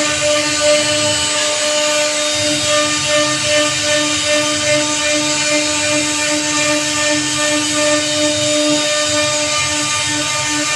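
J-1325 CNC router spindle running with its bit cutting into teak wood: a steady whine over the rasp of the cutter.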